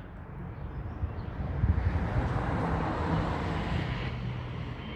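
A vehicle passing by: its engine and road noise swell to a peak around the middle and then fade away.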